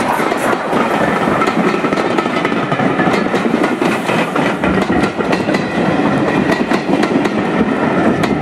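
Rake of passenger coaches rolling past at speed: a loud, steady rumble of wheels on rail with rapid clicks as the wheels pass over rail joints.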